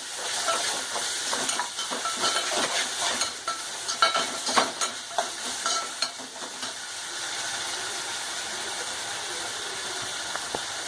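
Onions and ginger-garlic paste sizzling in hot oil in a pan, with a spoon stirring and clinking against the pan for about the first six seconds, then a steady sizzle.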